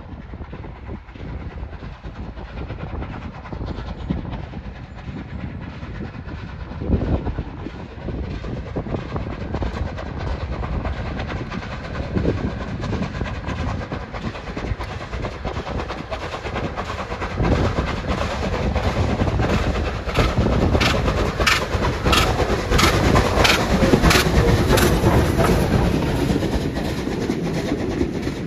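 A steam-hauled train approaching and growing steadily louder. In the last several seconds, as it draws close, there is a regular beat of about two strokes a second.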